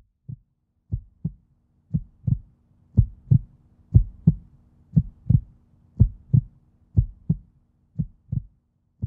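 Heartbeat sound effect: low double thumps about once a second, swelling louder through the middle and softening near the end, over a faint steady hum.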